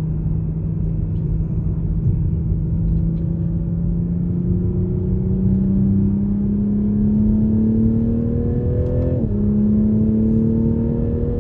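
2021 Toyota Supra's turbocharged inline-six engine pulling under gentle acceleration, its note rising slowly, then dropping suddenly about nine seconds in at a gear upshift and starting to climb again. The new engine is being driven lightly while it is still being broken in.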